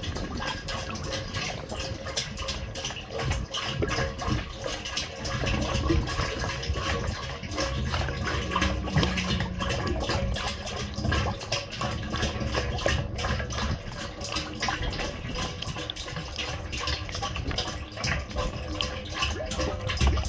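Hydraulic oil pouring steadily from a jug through a spout into a mini excavator's hydraulic tank.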